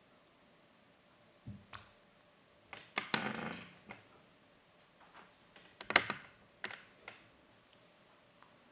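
Quiet, scattered clicks and scuffs from a kitten's paws and claws on a carpeted cat tree. There is a soft thump about a second and a half in, and two louder flurries of clicking and rustling around three and six seconds in.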